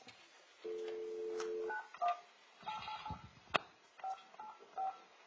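Telephone dial tone for about a second, then a run of short touch-tone (DTMF) keypad beeps as a conference-line number is dialled, with a sharp click about halfway through.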